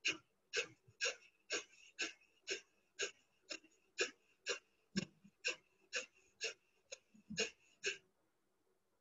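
Kapalbhati breathing: a rapid series of short, forceful exhalations through the nose, about two a second, stopping near the end.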